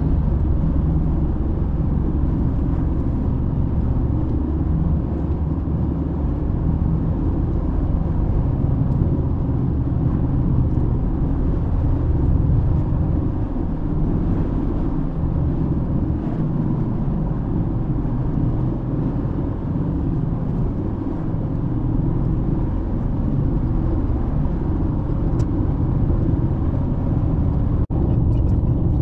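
Car driving on the open road: a steady low rumble of engine and tyre noise that briefly cuts out near the end.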